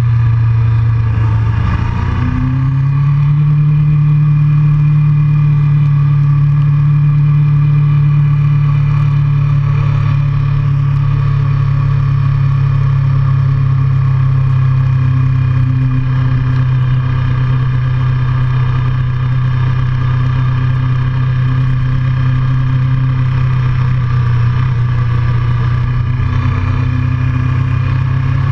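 A motor vehicle's engine running steadily while under way. Its drone dips and picks up again about two seconds in, then holds an even pitch.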